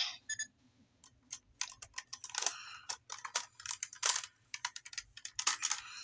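Small hard objects being handled at close range: an irregular run of sharp clicks and taps, with short clattery bursts in the middle and near the end.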